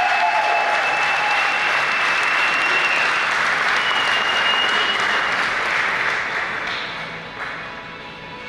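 Audience applauding steadily, fading away over the last two seconds, with a thin steady high tone above the clapping in the first half.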